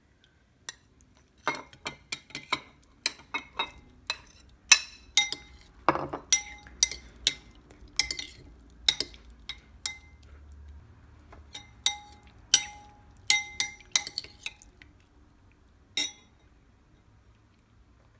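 A kitchen utensil clinking repeatedly against a bowl, in quick irregular strikes that each ring briefly, as when mixing in a bowl. The clinks start about a second and a half in, run on for over ten seconds at two or three a second, and end with one last clink after a short pause.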